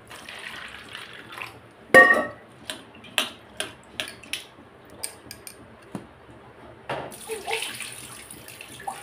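Water poured into a steel bowl of chickpeas as they are washed. A loud ringing clang of the steel bowl comes about two seconds in, then a run of light clicks as the chickpeas knock against the metal. Water is poured in again near the end.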